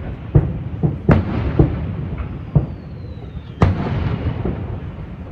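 Aerial firework shells bursting: about six sharp booms at uneven intervals, each followed by a rumbling echo that fills the gaps between them.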